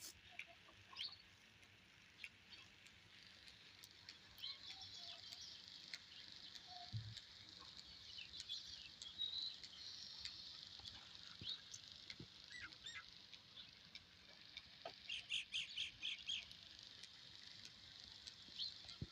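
Small birds chirping faintly in short, scattered calls, with a quick run of chirps about fifteen seconds in.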